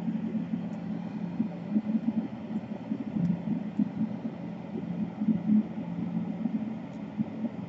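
Steady low background hum with a fluttering texture.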